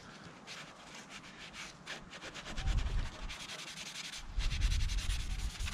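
The scouring side of a kitchen sponge scrubbing surface rust off a motorcycle's exhaust header pipe soaked in WD-40: a rough, scratchy rubbing that gets louder about two and a half seconds in.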